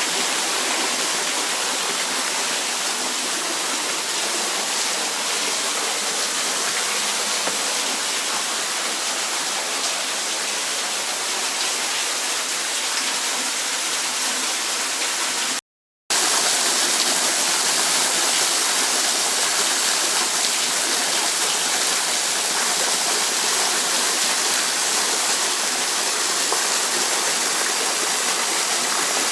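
Steady, continuous hiss of a waterfall. There is a brief silent break just past halfway, and after it the water is a little louder and brighter.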